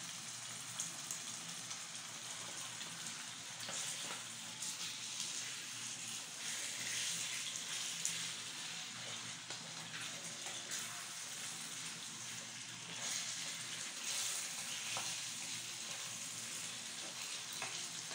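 Chunks of beef frying in a thick tomato sauce in a metal pot, sizzling steadily as a wooden spoon stirs it, with a few light knocks and scrapes of the spoon against the pot.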